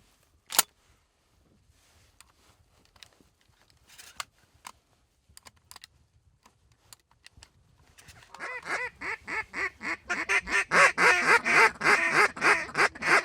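A single sharp click about half a second in, then faint scattered clicks. From about eight seconds in, Canada goose honking starts: many rapid, repeated honks that grow loud and keep going.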